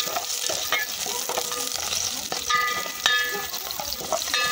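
Sliced red onion sizzling as it sweats in oil in a metal pot. A spatula stirs it, with short scrapes against the pot, the loudest about three seconds in.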